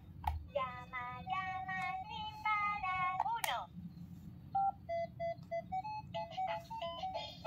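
VTech Soft Singing Animal Phone baby toy set off by its rotating ball: a click, then the toy's recorded voice sings a short phrase. A quick rising glide follows, and then a simple electronic tune of short beeping notes.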